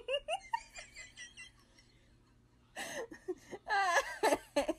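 A person giggling and laughing in short, rapid bursts without words: soft at first, then a pause, then louder laughter over the last two seconds.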